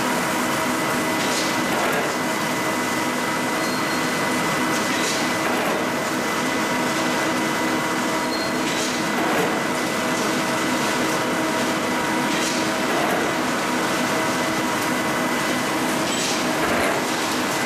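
Cold-rolled ribbed steel bar production line running: a steady mechanical drone with several fixed hums and a high whine. A short sharp burst comes about every three to four seconds, in step with the shear cutting each bar to length.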